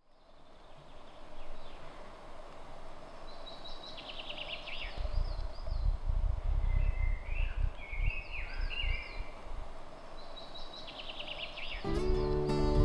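Forest ambience with songbirds singing: a phrase of wavy notes ending in a fast trill, heard twice, with other bird calls between and a low rumble that comes and goes in the middle. Acoustic guitar music starts about a second before the end.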